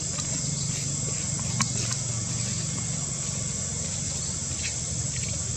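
Steady outdoor ambience: a constant high-pitched insect drone over a low steady hum, with a few faint clicks, one a little louder about a second and a half in.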